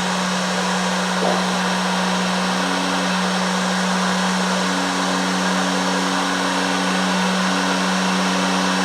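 Heat gun blowing steadily with a constant hum, shrinking dual-wall heat shrink tubing onto plier handles; a second, higher hum comes and goes partway through.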